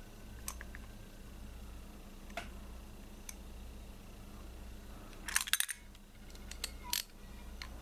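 Scattered light metallic clicks and taps of a spark plug socket, extension and ratchet as a new plug is threaded into the plug well, with a quick run of several clicks about five and a half seconds in and a few more a second later.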